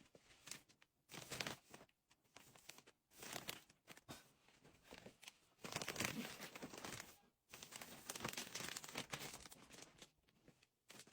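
Faint, irregular rustling and crinkling noises in short bursts, heaviest around six seconds in and again near nine seconds.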